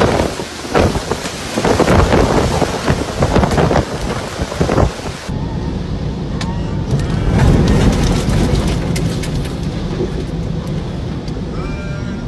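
Storm wind from a typhoon gusting hard, with rapid loud surges and rain noise. About five seconds in, the sound cuts to a deeper, steadier wind rumble with a few faint short high tones.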